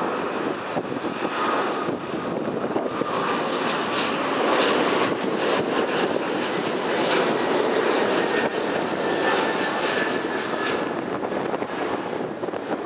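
Jet engines of a Boeing 777 airliner at climb power just after takeoff, passing overhead: a broad, steady rushing roar with a faint whine on top. It is loudest in the middle and eases slightly near the end as the jet moves away.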